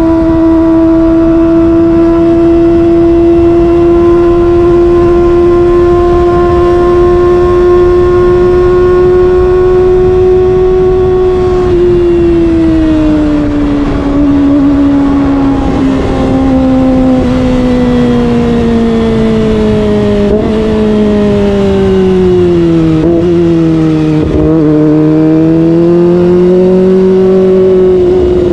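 Kawasaki ZX-25R's inline-four engine at high revs, heard from the rider's seat at speed over wind noise. It holds a steady high note for about the first ten seconds, then falls in pitch as the bike slows, with a few brief dips in the note over the last third.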